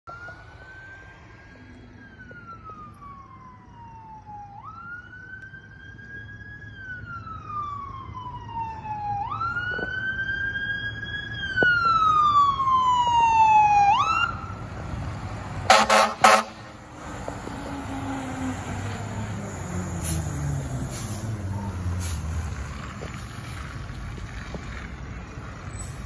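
Fire engine siren wailing, rising and falling in pitch and growing louder as the truck approaches, then two short, loud blasts of its air horn. After that the truck's diesel engine note falls steadily in pitch as it goes by.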